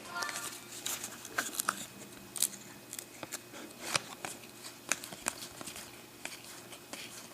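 Trading cards being flipped through and slid against one another by hand, giving soft irregular clicks and snaps, two or three a second.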